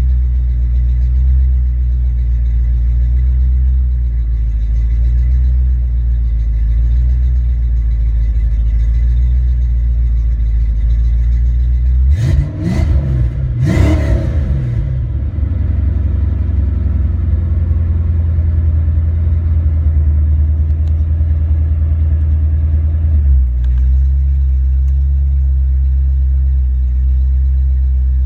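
Ford Mustang 5.0L V8 idling steadily, then revved up sharply twice about halfway through and held at raised revs for several seconds before dropping back to idle. This is an engine-computer test run: the revs are held to check for breakups.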